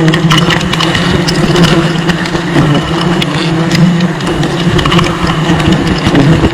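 Dense, steady buzzing of a large honeybee colony close to the microphone: a loud, even hum with scattered clicks.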